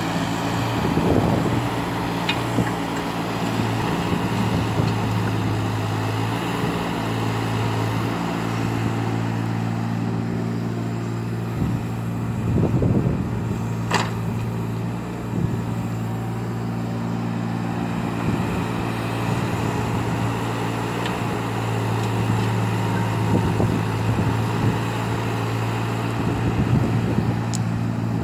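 Eurocomach ES 25 ZT 2.5-tonne mini excavator's diesel engine running steadily while it works, swelling briefly a few times, with a few sharp clicks or knocks, the loudest about halfway through.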